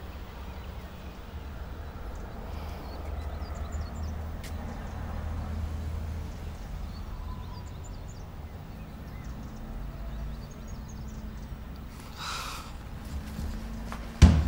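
Quiet outdoor ambience: a steady low rumble with faint, scattered bird chirps. Music with drums cuts in suddenly just before the end.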